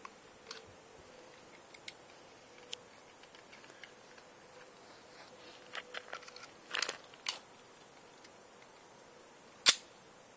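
A single loud, sharp pistol shot near the end, preceded by several faint clicks and knocks.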